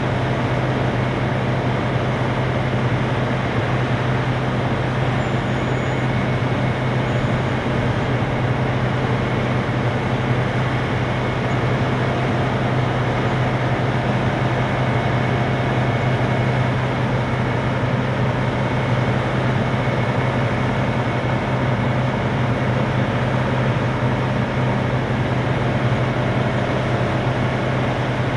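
Diesel power unit of a Vermeer D500x500 horizontal directional drill running steadily under hydraulic load while the rig's hydraulic legs slowly raise and tilt it. It is a constant low drone that does not change.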